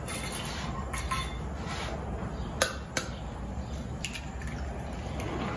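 An egg tapped on the rim of a glass bowl to crack it: two sharp clicks close together in the middle, with a few lighter taps and clinks around them.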